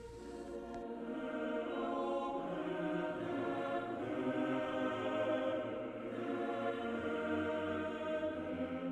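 Choral music: voices holding long, sustained chords, swelling in over the first couple of seconds and then steady.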